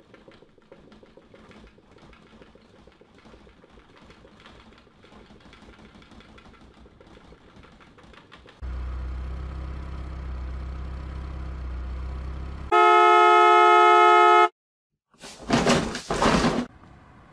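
Car sound effects: a low engine rumble for about four seconds, then a loud car horn held for about two seconds that cuts off suddenly, followed by a short, loud, rough burst of noise.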